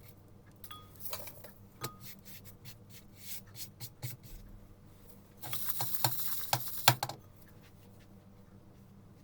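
Garlic being handled and peeled by hand: dry papery skins crackling and tearing in small clicks, with a denser burst of crackling about five to seven seconds in.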